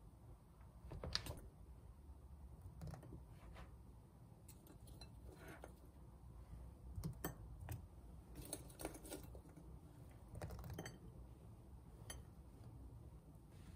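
Faint, scattered light clicks and small taps in a quiet room, with a short cluster of them about eight to nine seconds in.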